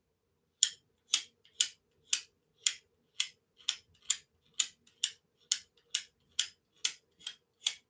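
A run of about sixteen sharp clicks in a steady rhythm, roughly two a second, coming slightly faster toward the end.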